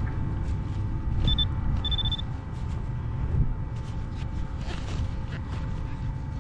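Low rumble of wind on the microphone, with two short high beeps from a metal detector a little over a second in: the first very brief, the second about a third of a second long.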